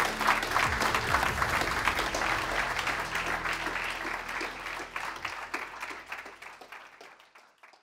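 Audience applauding, fading out over the last two seconds or so.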